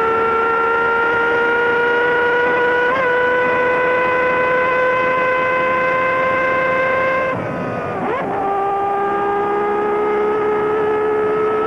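Formula One racing engine heard onboard at high revs, its pitch creeping steadily upward for about seven seconds. The revs then drop abruptly as the car slows and changes down, with a brief rough, wavering note. The engine then pulls again from lower revs.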